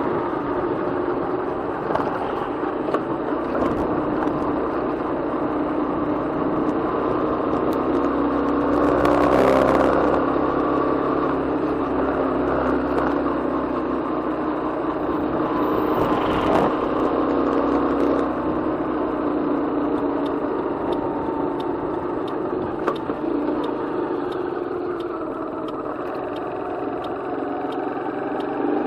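Steady wind and road-rolling noise of a bike riding along a tarmac road, heard through a camera mounted low on the bike. Two vehicles pass close by, swelling louder for a moment about nine seconds in and again about sixteen seconds in, the second one an oncoming bus.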